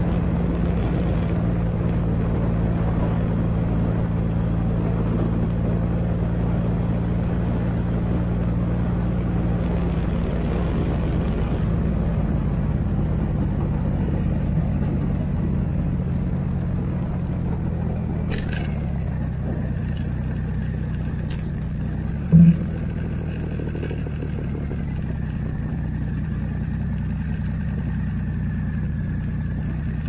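Motorcycle engine running steadily as the bike rides along and slows, with wind noise on the microphone that eases off partway through. A sharp click a little past halfway, and a brief loud knock about three-quarters through, the loudest moment.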